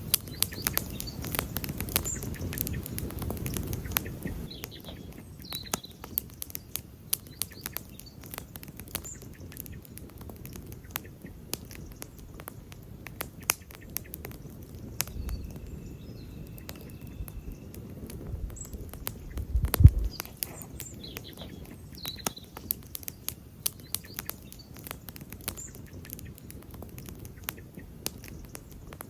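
Wood campfire crackling, with frequent sharp pops and snaps of uneven loudness and a few short high chirps now and then. A single heavy low thump about two-thirds of the way through is the loudest sound.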